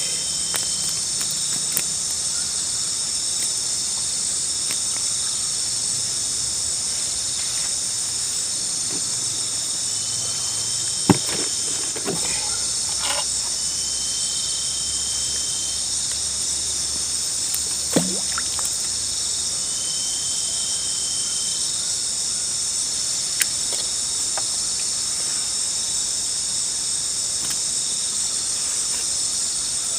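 Steady, dense high-pitched chorus of night insects such as crickets, with a few separate calls of about two seconds on a slightly lower pitch. A few sharp clicks stand out, the loudest about eleven seconds in.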